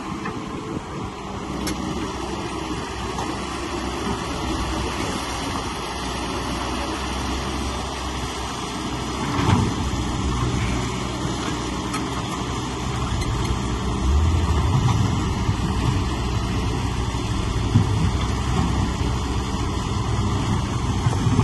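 Heavy machinery engine running steadily, getting louder briefly about nine and a half seconds in and again from about fourteen seconds.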